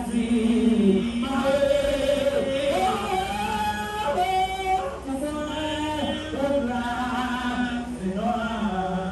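Several voices singing a slow worship song in harmony, holding each note for about a second before moving to the next.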